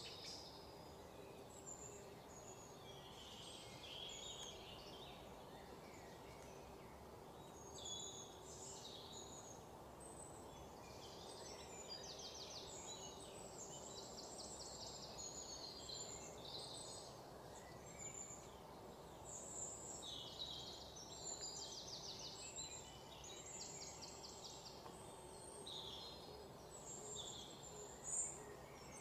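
Quiet outdoor background with many short high-pitched chirps and a few quick trills, over a faint steady hum.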